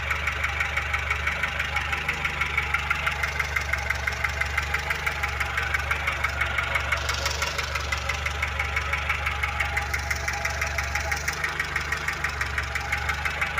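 VAZ 2106 engine idling with a fast, even ticking knock from under the valve cover. The owner later traces the knock to a half-worn intake-valve rocker arm.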